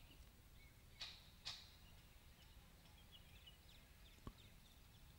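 Near silence: faint outdoor background with two short, high chirps about a second in and a single soft click near the end.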